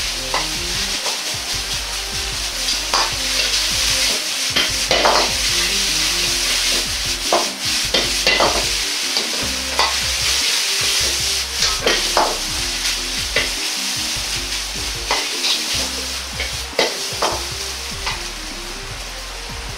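Ketchup rice with butter frying in an iron wok: a steady sizzle, with the metal wok ladle scraping and knocking against the wok about once a second as the rice is stirred and tossed.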